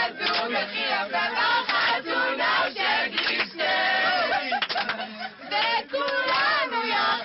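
A mixed group of men and women singing a chorus together loudly, with excited shouts among the voices.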